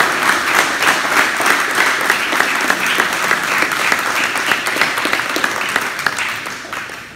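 A small group of people clapping, a dense run of hand claps that dies away near the end.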